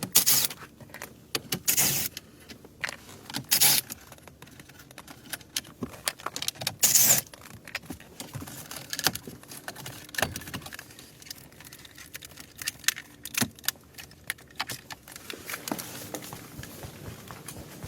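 Irregular clicks, rattles and clinks of hand-handled tools and parts, with a few short, loud rustling scrapes in the first half.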